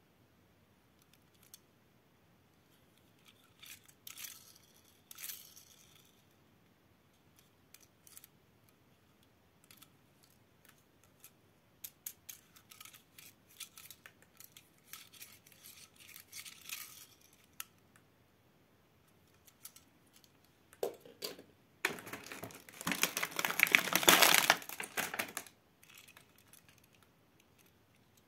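Small clicks and taps of a die-cast toy car being handled in the fingers, with a loud stretch of crinkling packaging about two-thirds of the way through, lasting three or four seconds.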